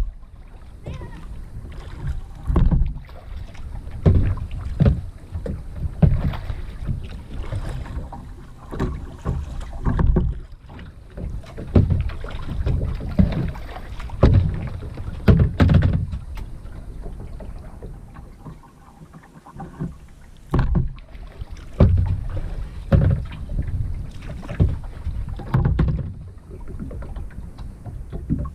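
Kayak paddling: paddle blades dipping and splashing in the river at an uneven pace, roughly a stroke every second, with a brief lull partway through.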